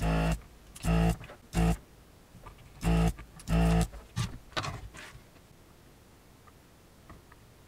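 About five short, loud knocks with a brief ringing tone in the first four seconds, then a few fainter ones, from desoldering work on an LCD monitor's power-supply board.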